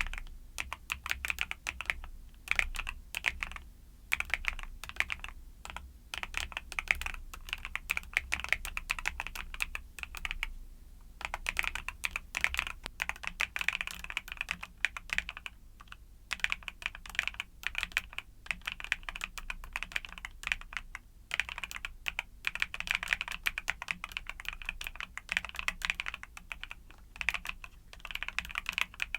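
Typing on a mechanical keyboard with YUNZII Cocoa Cream switches: quick runs of keystroke clacks broken by brief pauses.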